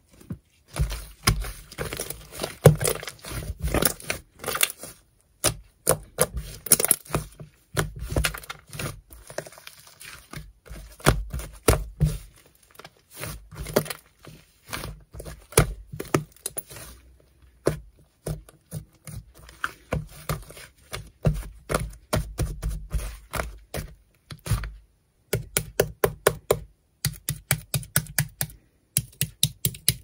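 Thick white slime being squeezed, folded and pressed by hand, giving dense runs of small crackling clicks and pops, with short pauses between handfuls.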